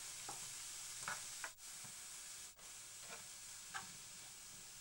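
Shrimp, red peppers and green onions sizzling in hot oil in a pan as they are stir-fried, with a few light scrapes of the stirring utensil against the pan.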